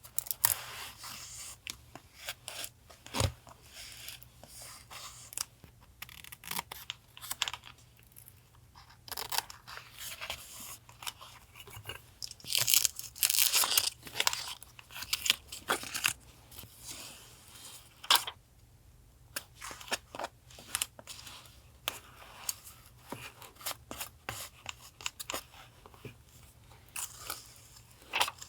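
Paper being handled for a collage: irregular tearing, rustling and crinkling of paper, with sharp taps, loudest about halfway through. A refrigerator's faint low hum runs underneath.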